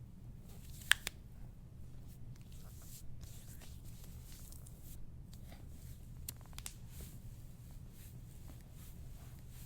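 Soft-tissue work on a patient's back: faint rubbing and rustling of hands pressing over skin and clothing, with a sharp click about a second in and a couple of fainter clicks later.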